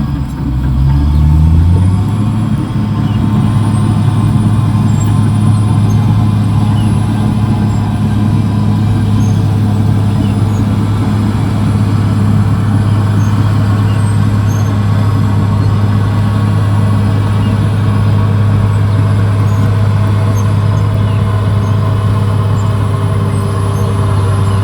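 Caterpillar D6R XL bulldozer's diesel engine running. Its note rises about two seconds in and then holds steady at the higher speed.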